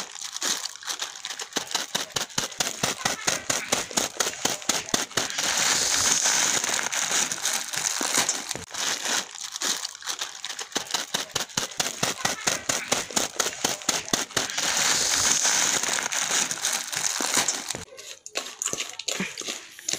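Plastic packet crinkling as dry grains are shaken out of it into a steel bowl of crushed dry noodles, with a steel spoon in the dry mix. A quick stream of ticks and rustles runs throughout, with two stretches of steadier hiss where the grains pour.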